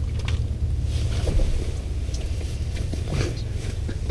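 Steady low rumble, heard as wind noise, with light rustling and a few small clicks as a freshly caught bluegill is handled.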